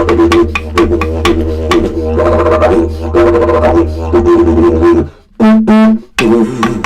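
Didgeridoo played with a steady low drone pulsed by a fast rhythm of breath and tongue accents. About five seconds in the drone breaks off, a short higher-pitched held note sounds, and then the rhythmic drone picks up again.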